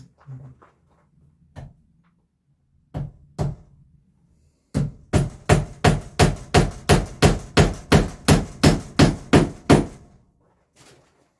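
A hammer striking repeatedly: two single knocks, then a steady run of about seventeen blows at roughly three a second.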